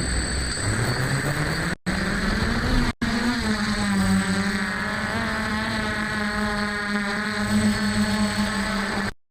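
F450 quadcopter's stock brushless motors and propellers spooling up, the hum rising in pitch over about three seconds and then holding a steady buzzing drone as the craft lifts off into a hover. The sound cuts out for an instant a few times.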